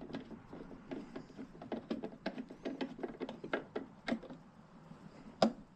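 Irregular light metal clicks and taps of hand work on a boiler's burner assembly, as the gas valve is fitted back on and its screws are started.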